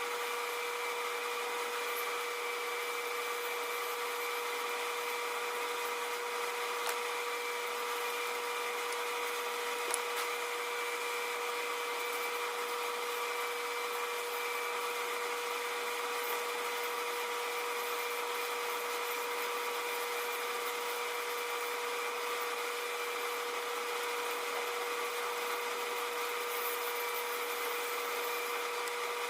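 An electric power tool running steadily at constant speed: a steady whine over an even hiss, with no change in speed.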